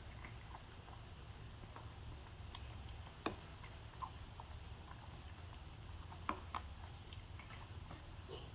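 Faint scattered clicks and taps of a pet monkey eating small pieces of food, over a low steady hum; a few sharper clicks stand out, two of them close together past the middle.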